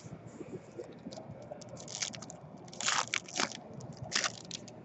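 Foil trading-card pack wrapper crinkling as it is torn open by hand, with several sharp crackles, loudest about three and four seconds in.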